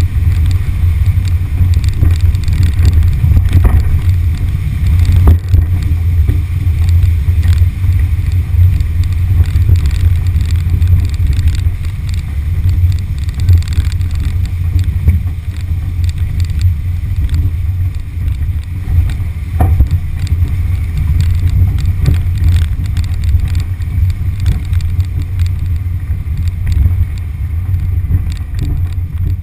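A 1974 VW Beetle's 1600cc air-cooled flat-four engine is driving the car steadily up a rutted mud lane, heard as a continuous low rumble mixed with wind on the microphone. Scattered knocks come from the car jolting over the ruts.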